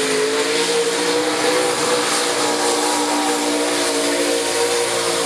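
Pickup truck's engine held at high revs as it drives through a mud pit, its pitch fairly steady, with the wheels spinning and throwing mud.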